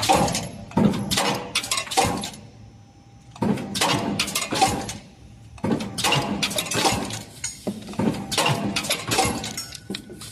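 Hot nut-forging press at work: rapid metallic clanks and clinks in clusters of several strikes, with brief lulls between clusters.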